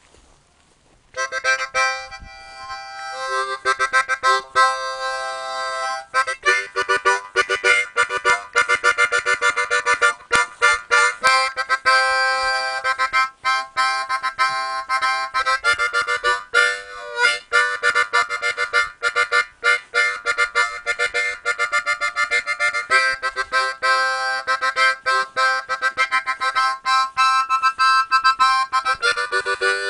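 Harmonica music, chords played in a quick choppy rhythm, starting about a second in.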